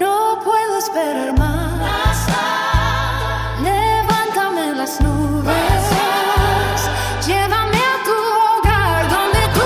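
Christian worship song: a voice singing a melody over a full band, with a bass line coming in about a second and a half in. The music gets suddenly louder right at the start, as a new section begins.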